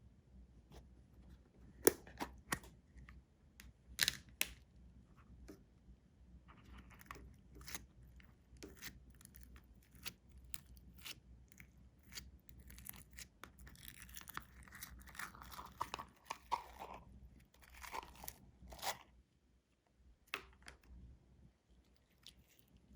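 Slime being squeezed and worked by hand, giving irregular sticky clicks and pops, with a denser run of crackling about two thirds of the way through.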